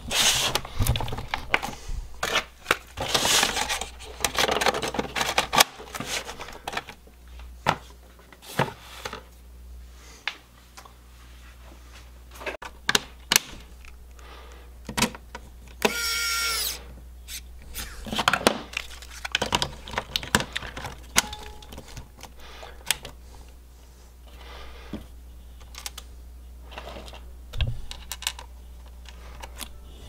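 Reassembling a laptop: many clicks and taps as the plastic bottom case is pressed and snapped into place, and small screws and parts handled. A pen-style electric precision screwdriver whirs briefly about sixteen seconds in as it drives a case screw.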